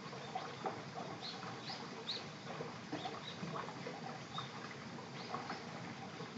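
Cat chewing wet canned food, small wet smacking and clicking sounds that thin out as it lifts its head from the bowl. A few short high chirps sound in the background.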